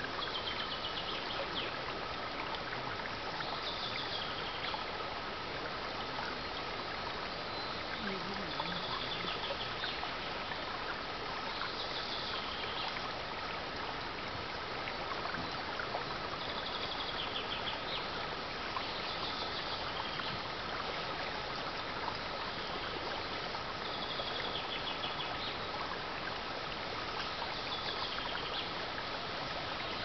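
Shallow mountain stream flowing over stones: a steady rush of water. A bird repeats a short, high, falling song phrase about every four seconds.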